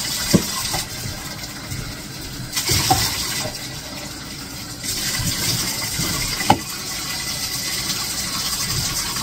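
Running water filling a bathtub and splashing as a dog is rinsed with a plastic scoop. The water swells louder twice, with three sharp knocks.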